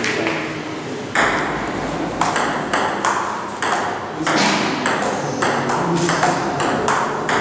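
Table tennis rally: the ball clicking sharply off the paddles and the table, one click about every half second to second, starting about a second in.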